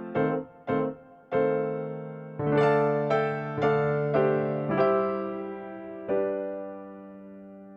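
Background music: a slow keyboard melody of separate struck piano-like notes, each fading away, ending on a long note that slowly dies out.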